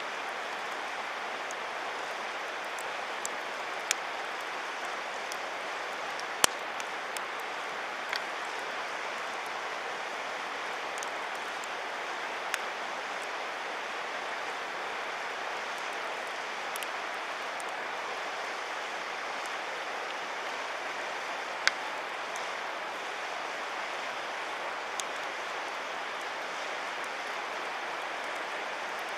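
Wood campfire burning with a steady rushing hiss and a handful of sharp crackling pops, the loudest about six seconds in and again a little past twenty seconds.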